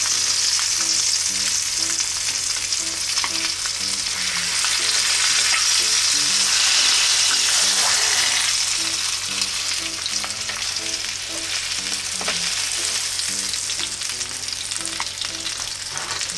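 Floured chicken breasts frying skin-side down in melted butter in a frying pan: a steady sizzle with a few small crackles.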